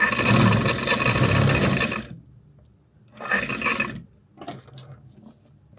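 Juki industrial sewing machine running fast in a burst of about two seconds, stopping, then a shorter burst of about a second, followed by a few faint clicks.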